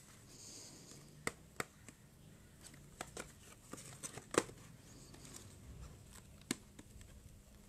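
Cardboard cosmetic boxes handled and shifted about: quiet rustling with a few scattered light taps and clicks, the sharpest a little past four seconds in.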